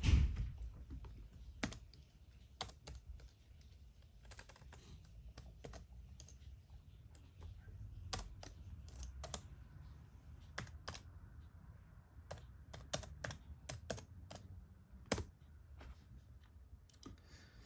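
Typing on the built-in keyboard of a late 2009 white MacBook: irregular key clicks, some in quick runs, with one louder tap about three-quarters of the way through.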